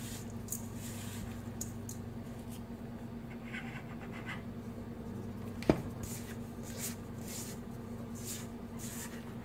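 Silicone spatula scraping and stirring stiff oatmeal cookie dough in a stainless steel mixing bowl: soft, irregular scraping and rustling strokes, with one sharp knock a little past halfway. A low steady hum runs underneath.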